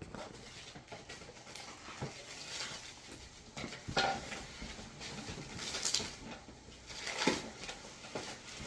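Cardboard boxes and packaging being handled and opened: scattered rustles and light clicks, with sharper knocks about four seconds in and again after seven seconds.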